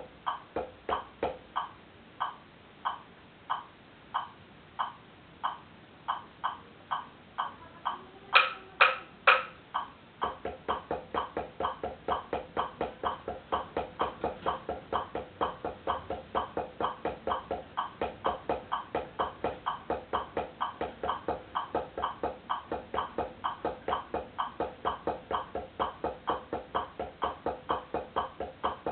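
Taiko sticks (bachi) striking a practice board in an even drill rhythm, slow at first. Three much louder hits come about a third of the way in, then a faster, steady run of strokes, about four a second.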